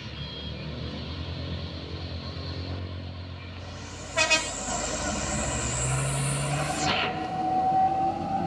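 Mitsubishi Fuso truck's diesel engine running under heavy load as it tows a stalled Colt Diesel truck up a steep climb. About four seconds in comes a sudden loud burst, then a steady high whine holds on over the engine.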